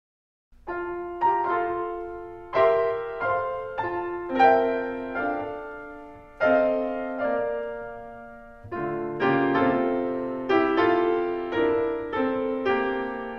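Solo piano playing a slow, gentle piece of struck chords and melody notes, each ringing and fading away. There is a short pause in the playing a little past the middle.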